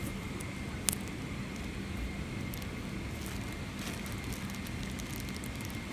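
Steady Boeing 777 cabin background noise: an even hiss with a constant low hum, and a single light click about a second in.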